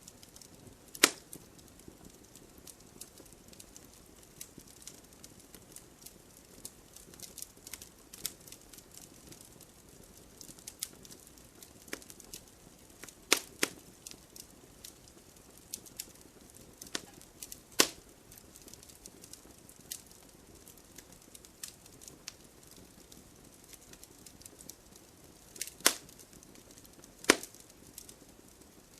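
Wood fire burning in a fireplace, logs crackling: irregular small pops over a faint steady hiss of flame, with a few much louder snaps, two of them near the end.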